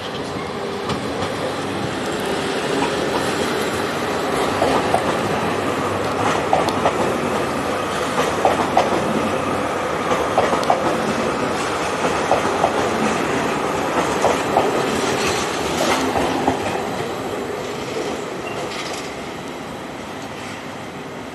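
Trenitalia ETR 170, a Stadler FLIRT electric multiple unit, rolling past. Its wheels click over the track, with brief squeals. The sound swells, then fades as the train pulls away in the last few seconds.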